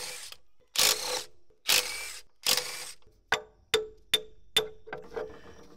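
Cordless power tool with a socket, running in three short bursts on a bolt of a Caterpillar D8H's hydraulic filter housing. Then five sharp metallic clicks about 0.4 s apart follow, each ringing briefly.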